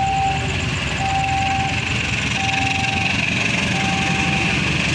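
Level-crossing alarm sounding a steady electronic tone that switches on and off about every 1.3 s, four times, over the low rumble of an approaching CC201 diesel-electric locomotive.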